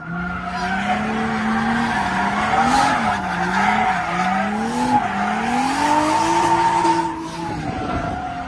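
A drift car sliding on track: the engine revs rise and fall repeatedly as the throttle is worked, over a continuous tire squeal.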